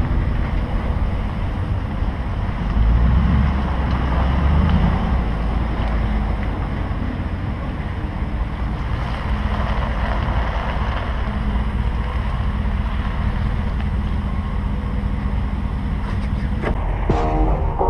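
Steady low rumble with wind noise, the road and wind noise of a vehicle on the move.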